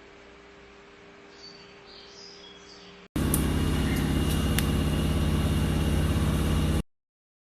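A faint steady hum with a few short high chirps, then, after a sudden cut about three seconds in, a loud steady buzzing hum with a fast pulse and a thin high tone, broken by a few clicks, that stops abruptly near the end.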